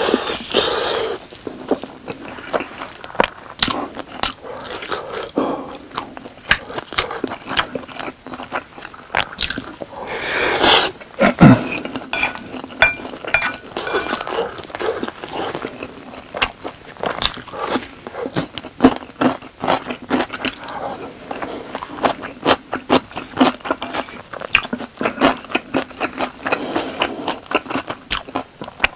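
Close-miked chewing of sauced boneless fried chicken and rice: a dense, irregular run of wet chewing and biting clicks. A louder, longer rustling sound comes about ten to eleven seconds in.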